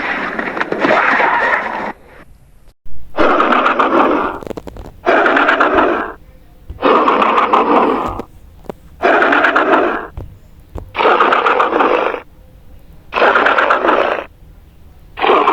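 Austroraptor dinosaur sound effect: a series of raspy, growling calls, each about a second long and coming roughly every two seconds after a longer opening call.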